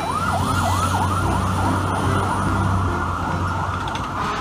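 Fire truck siren on a fast yelp, its pitch sweeping up and down about three times a second and fading away near the end, over the low rumble of the truck's engine.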